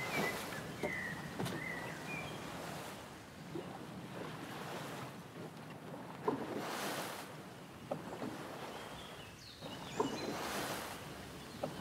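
Oars splashing through river water as a small rowing boat is pulled along, with a swell of splash every few seconds and light knocks of the oars between.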